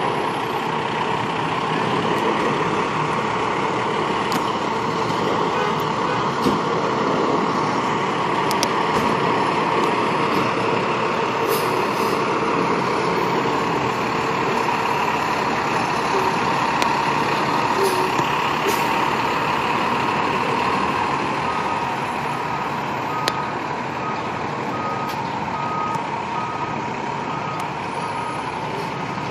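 Seagrave fire engine's diesel running at low speed as the apparatus pulls up and manoeuvres. For the last several seconds its reversing alarm beeps steadily, a little faster than once a second, as it backs up.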